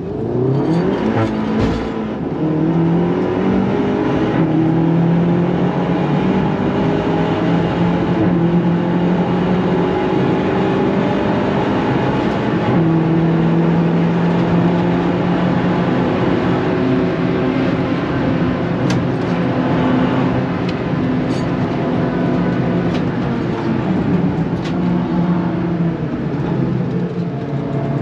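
Seat Leon Cupra's turbocharged four-cylinder engine, heard from inside the cabin, accelerating hard through the gears. Its pitch climbs and drops suddenly at each upshift, with two quick shifts in the first few seconds and another about 13 seconds in, then it runs on at high revs at speed.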